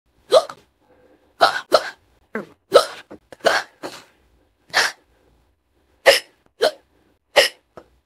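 A woman hiccuping fast and repeatedly: about a dozen short, sharp hiccups, some in quick pairs, with a pause of about a second just past the middle.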